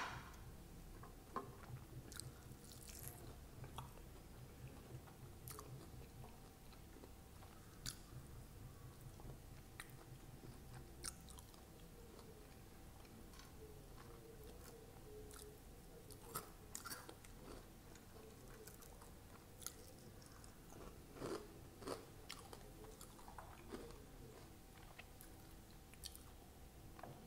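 Faint, close-miked chewing of sabudana vada, a fried sago-and-peanut fritter, with scattered soft crunches and small mouth clicks.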